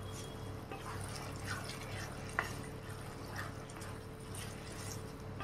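Thin, watery masala sauce with paneer and vegetables bubbling in a non-stick kadai as a wooden spatula stirs it, with one light click about halfway through. A little water has been added so the paneer softens while it simmers.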